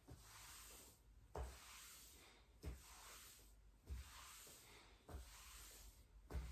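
Hands rubbing briskly along the leg in the self-massage, faint swishing strokes about once every second and a quarter, each with a soft thump.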